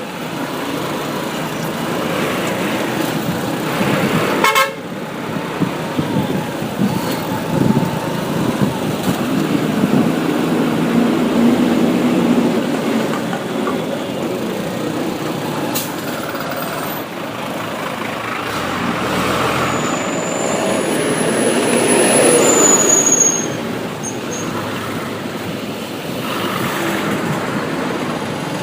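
Road traffic noise heard from a bike riding through it: a steady mix of passing engines and road noise, with vehicle horns tooting. A sharp click sounds about four and a half seconds in.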